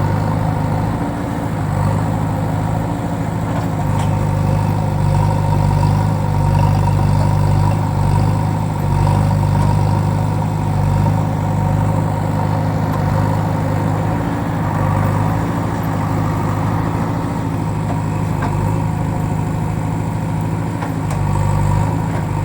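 JCB backhoe loader's diesel engine running steadily at idle, a deep even drone with small swells in level but no change in pitch.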